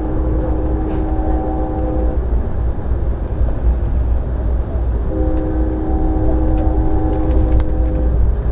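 Locomotive horn sounding a multi-note chord in two long blasts, the first ending about two seconds in and the second running from about five to eight seconds in. Under it is the steady rumble of a moving passenger rail car, heard from inside.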